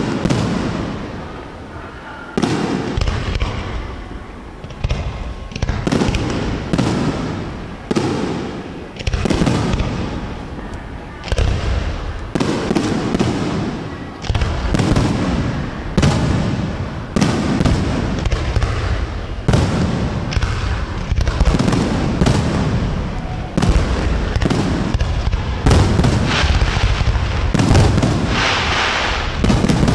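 Aerial fireworks shells bursting one after another, each bang trailing off. The bursts come thicker and louder in the last few seconds.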